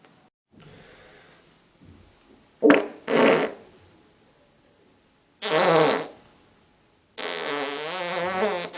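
Farts, one after another: a short sharp one followed at once by a buzzy one a few seconds in, another buzzy one a couple of seconds later, and a long wavering one starting near the end.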